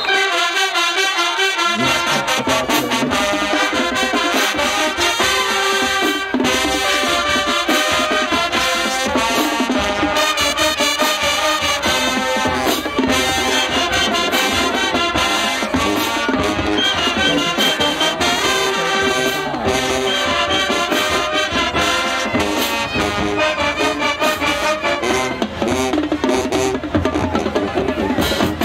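High school marching band playing a stand tune in the bleachers: brass carrying the melody over a steady drum beat, with the deep bass part coming in about two seconds in.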